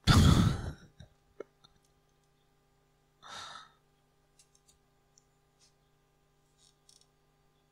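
A loud sigh right at the microphone, a softer breath out about three seconds later, and a few faint clicks, over a steady faint hum.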